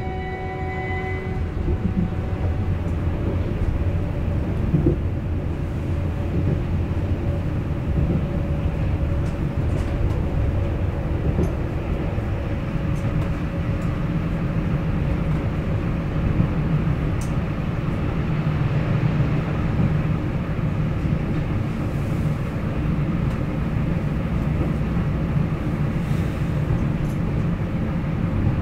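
Hamburg U-Bahn DT4 metro train heard from inside the car while running along the track: a steady rumble of wheels on rail with a faint steady whine and an occasional click.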